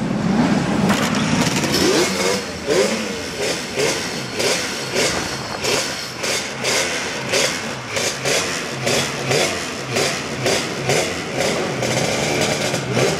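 Yamaha TZ350 two-stroke twin race engine running on the throttle and revved in short repeated blips, about one and a half a second, each a quick rise in pitch.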